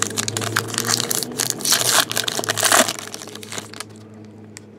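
Trading-card pack wrapper crinkling and crackling as it is torn open and handled, loudest about two seconds in and again shortly after, then dying away near the end.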